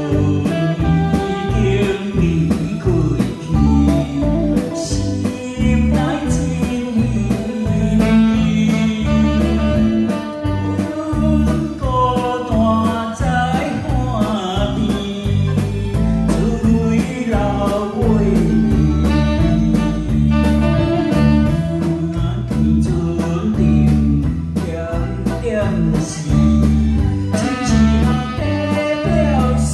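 Live band music with a man singing into a microphone, backed by drum kit, guitar and saxophone over a steady beat.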